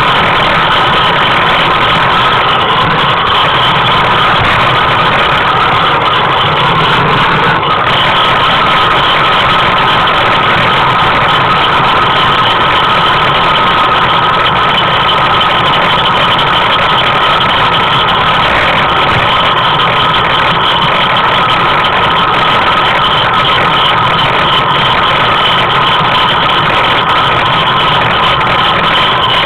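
Steady, loud rolling noise of a dog-drawn tricycle moving along an asphalt road, unchanging throughout.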